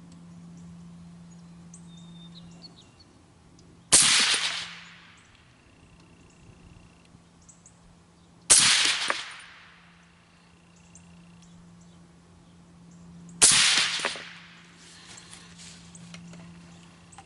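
Three suppressed rifle shots from an XM25 sniper rifle, a semi-automatic M14-type rifle in 7.62x51 NATO fitted with a Sionics sound suppressor, spaced about four and a half to five seconds apart. Each shot cracks sharply and fades over about a second. A few light clicks follow near the end.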